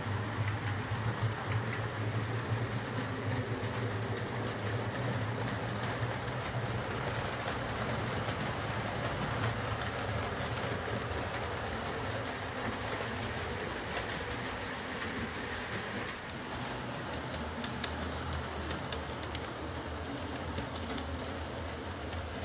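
OO gauge model train running along the layout's track: a steady motor hum with wheel noise on the rails. The hum drops a little in pitch about three quarters of the way through.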